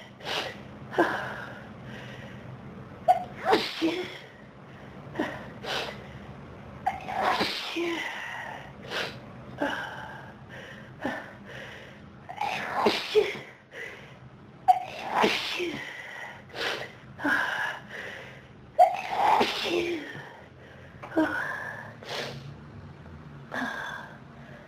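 A person sneezing over and over in a big sneezing fit: many short, sharp sneezes in quick succession, about one every second, some in close pairs.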